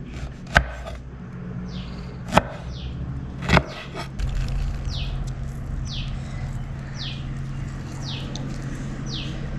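A small bird repeats a short, high, falling chirp over and over. Three sharp knocks come in the first few seconds, and a steady low hum starts about four seconds in.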